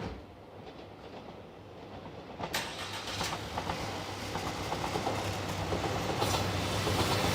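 A train approaching and growing steadily louder, its rumble building, with wheel clicks over rail joints starting about two and a half seconds in.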